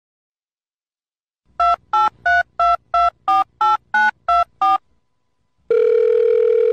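Touch-tone telephone keypad dialing: ten short two-tone beeps, about three a second. About a second after the last beep, a steady line tone begins, as the call goes through.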